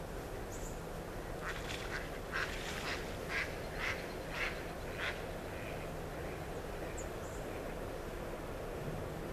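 Duck quacking, a run of about eight quacks at roughly two a second, loudest in the middle and trailing off.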